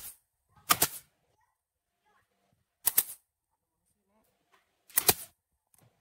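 Pneumatic brad nailer firing nails into the wooden panels of a box. There are four sharp shots, each a quick double snap: one at the very start, then about one, three and five seconds in.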